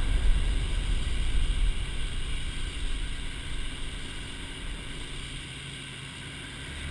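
Helicopter cabin noise: a steady low rumble of engine and rotor that gradually grows quieter.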